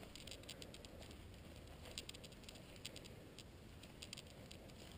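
Faint footsteps of a hiker walking on a leafy, grassy trail: an uneven run of light crisp pattering steps.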